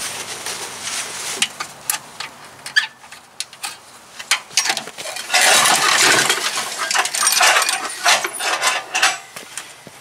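Recoil starter of a wood chipper's 5.5 hp OHV engine being pulled, the engine turning over without catching. There is a louder whirring pull about five seconds in and a shorter one later, with scattered metallic clicks and clinks around them. The carburetor is leaking fuel, which the owner takes for a stuck float.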